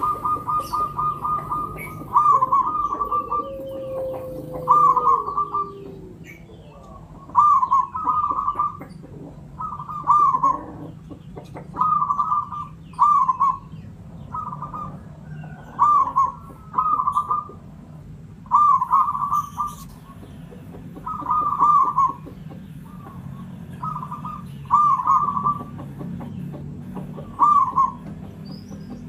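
Zebra dove (local Javanese perkutut) cooing: short phrases of quick, rolling coo notes, repeated every second or two.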